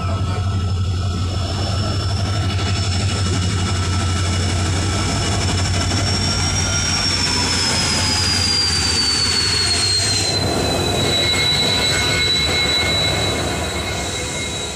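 Diesel locomotive passing close by at the head of a passenger train, its engine running with a steady low drone and a high whine that falls in pitch as it goes past. The coaches then roll by with wheel noise, fading near the end.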